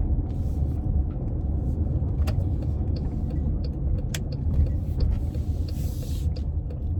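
Road and engine rumble inside a moving car's cabin, steady and low, with a run of regular light ticks in the second half.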